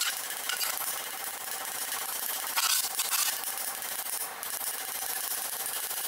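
Steel gauntlet plate scraping and rubbing as it is shifted and turned on a steel stake, over a steady hiss, with a louder scrape about two and a half seconds in.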